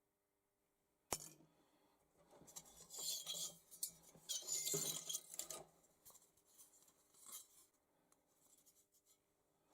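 Brass chandelier parts being handled and worked apart by hand: a sharp click about a second in, then two spells of metallic scraping and clinking, with a few lighter clicks after.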